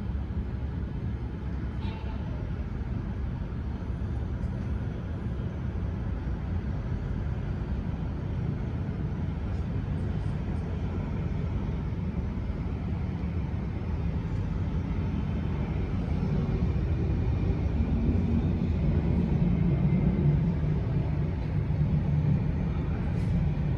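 Jet airliner engines making a steady low rumble that grows louder about two-thirds of the way through.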